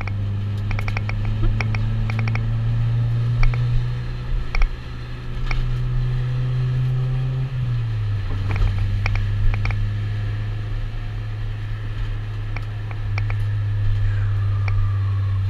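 Honda Civic's engine droning steadily from inside a stripped-out cabin, its pitch creeping up slowly and then dropping suddenly about halfway through as the revs fall. Scattered clicks and rattles from the bare interior.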